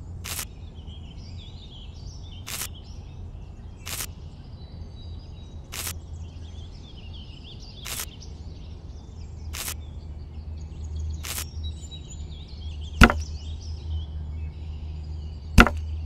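Bamboo skewers pushed one by one into sandy soil, each giving a short sharp click about every one and a half to two seconds, with two louder cracks near the end.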